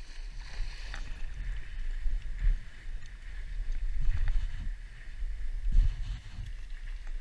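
Wind buffeting the microphone in uneven low gusts, with water sloshing and lapping in a flooded marsh.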